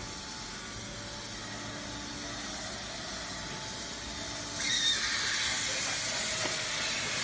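A steady low hum, then a loud hiss of rushing air that starts suddenly about four and a half seconds in and keeps going.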